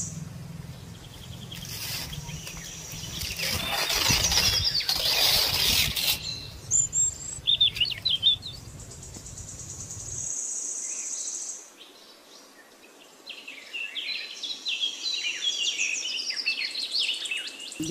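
Coconut palm fronds rustling and swishing as they are dragged and handled, loudest a few seconds in, with a few sharp cracks around the middle. Birds chirp in the later part.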